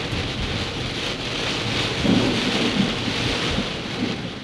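Heavy rain falling steadily through a thunderstorm, with a low rumble of thunder swelling about two seconds in.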